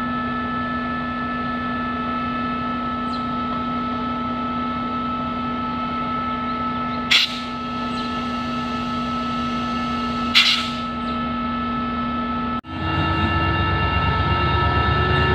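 CSR U20 diesel-electric locomotive running with a steady engine hum as it hauls a train of oil tank wagons. There are two short sharp bursts about 7 and 10 seconds in. Near the end the engine becomes louder, with a deep rumble and a tone that rises slowly.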